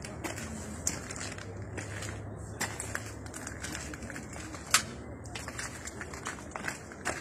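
Scattered sharp clicks and knocks over a steady low background murmur, the loudest a little under five seconds in.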